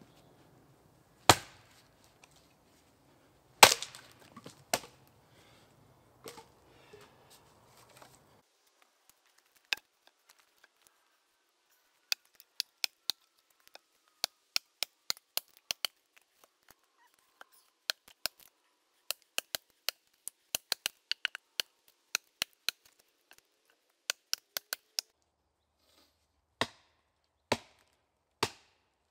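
Axe chopping into a log: sharp wooden chops. A few spaced strikes come first, then a long run of quicker sharp knocks in tight clusters, and a few spaced chops again near the end.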